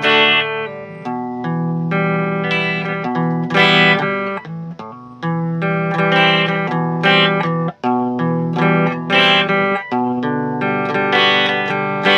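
Electric guitar played through a Joyo DC30 guitar amplifier: picked chords and single notes ringing out, with a short break about eight seconds in.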